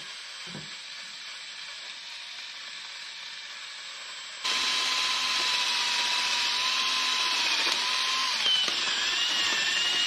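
Drill spinning a buffing ball against a metal lever handle, polishing the dull hardware with compound. It runs steadily, then about halfway through gets louder with a whine that wavers near the end.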